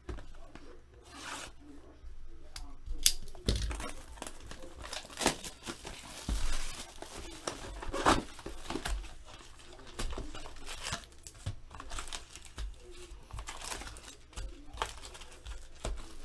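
Plastic wrap and foil trading-card packs crinkling and tearing as a hobby box is unwrapped and its packs are lifted out and handled, with scattered louder crackles.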